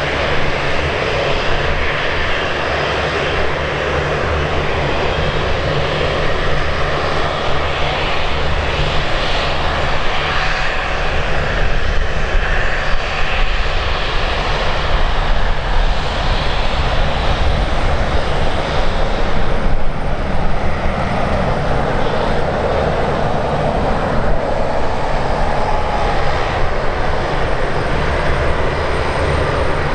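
Airliner engines running at an airport, a loud, steady engine noise that holds without clear rise or fall.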